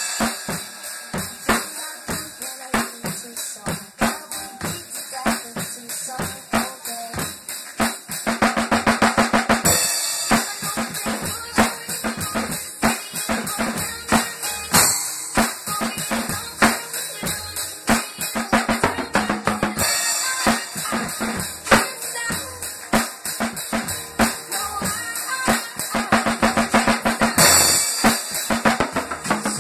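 Acoustic drum kit played in a steady rock beat, kick drum, snare and cymbals, with several stretches of faster, denser hits and cymbal wash.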